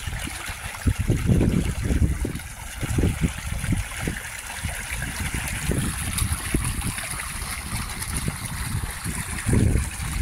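Shallow stream trickling and splashing over rocks, a steady rush of water. Irregular gusts of wind rumble on the microphone over it, louder than the water.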